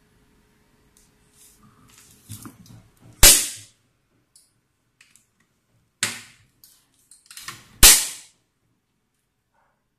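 Toggle latches on the lid of a nano waterproof coating machine's chamber snapping shut: three sharp snaps a few seconds apart, the first and last loudest, with some soft handling noise before the first.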